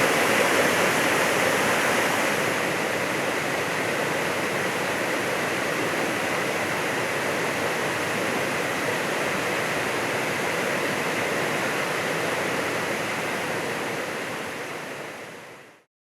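A wide, low waterfall rushing steadily, then fading out near the end.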